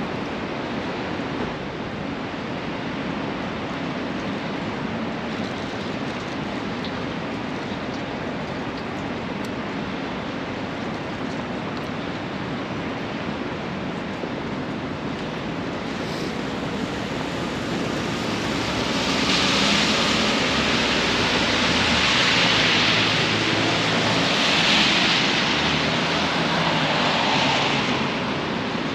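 Steady hiss of rain and traffic on wet city streets. Just past the middle it swells louder for about ten seconds, peaking twice, with a low rumble underneath.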